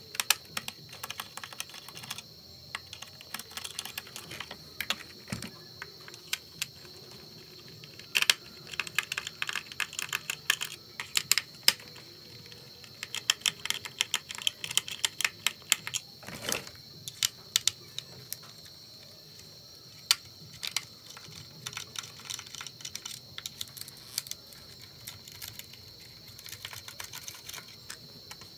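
Irregular small clicks and taps of the hard plastic chassis and parts of a Huina 1582 RC dump truck being handled and pried apart, with a screwdriver clicking on screws, thickest in the middle. A faint steady high whine sits underneath.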